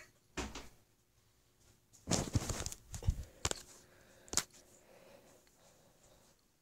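Rustling and knocking handling noise as the phone rubs against a cat's fur, loudest in a cluster about two seconds in, with two sharp clicks a second or so later.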